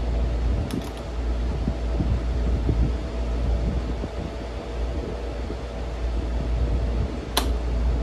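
RAKS DF-12TK desk fan running with its blade on: a steady motor hum and blade whir from the freshly greased motor. There are a few faint ticks about a second in and a single sharp click near the end.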